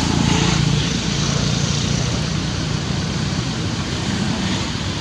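Steady motor vehicle noise, with a low engine hum that is strongest in the first couple of seconds.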